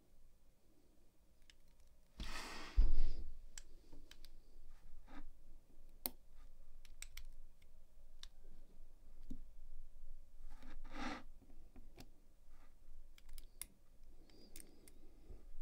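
Small, scattered metal clicks and taps as pins are worked into the brass cylinder housing of an American Lock 1100 padlock with a fine metal tool during reassembly. A louder brushing bump comes about two to three seconds in, and another brief rustle of handling comes around eleven seconds.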